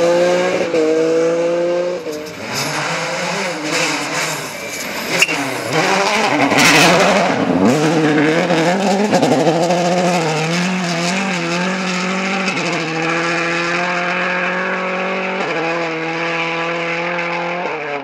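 Rally cars driven flat out on a gravel stage. An engine revs up, then there is a noisy stretch of the car passing and loose gravel with a sharp crack about five seconds in. A Subaru Impreza WRC's engine is then held at high revs, stepping in pitch twice, and the sound cuts off at the end.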